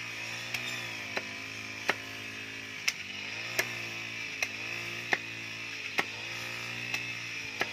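Forged knife made from a lawnmower blade chopping chips off the end of a wooden stick held against a tree stump: about ten sharp chops, a little under a second apart.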